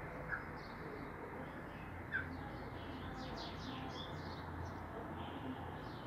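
Small birds chirping. Two short chirps come in the first couple of seconds, then a quick run of high, falling notes around the middle, over a steady background noise.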